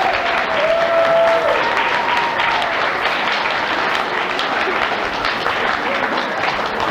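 Audience applauding steadily, with a few voices calling out over the clapping in the first two seconds or so.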